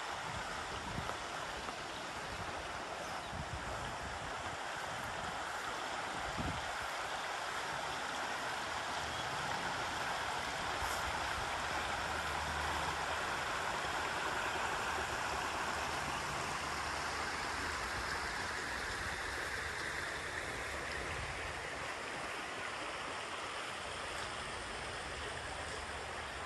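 Shallow, rocky river running over stones in riffles: a steady rushing hiss of flowing water.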